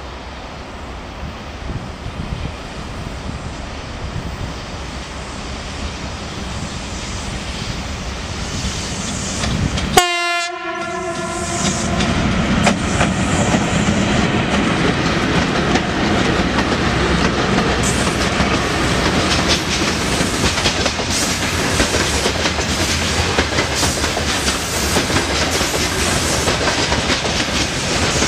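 VL11 electric locomotive hauling a freight train, approaching with a rising rumble and giving one short horn blast about ten seconds in. The locomotive then passes close by, followed by a long train of loaded hopper wagons, wheels clattering over the rail joints.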